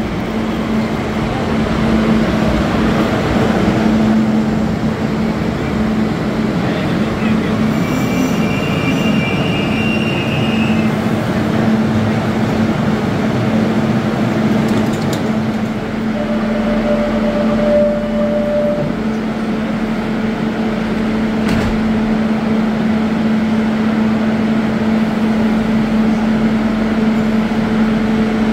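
Barcelona Metro (TMB) train in an underground station, coming in and standing at the platform with a steady electrical hum under crowd chatter. A brief high electronic tone sounds about a third of the way in, and a lower one lasting about two seconds just past halfway.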